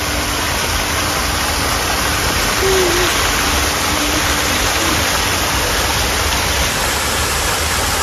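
Steady rushing noise of running water, with a couple of faint, short, low hooting bird calls about a third and halfway through.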